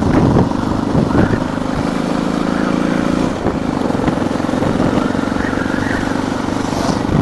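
Suzuki DR650's single-cylinder four-stroke engine running steadily while the motorcycle is under way, over a rush of wind and road noise, recorded on a cheap dictaphone.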